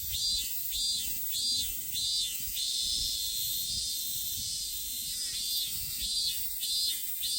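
Minmin cicada (Hyalessa maculaticollis) singing its "min-min-min" call. The high pulsed notes come a little under twice a second, run together into one steady held note in the middle, then break back into pulses.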